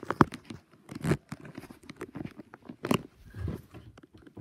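Handling noise from a handheld camera being carried through a room: irregular knocks, clicks and rustles, the sharpest about a second in and again near three seconds in.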